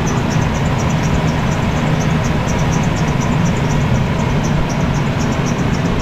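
2006 Ford E350 van's engine idling steadily with the hood open, running like a champ just after starting, with a faint regular high-pitched ticking over the idle. The van has been stalling and failing to start, a fault the mechanic traces to a bad contact in the PCM power relay.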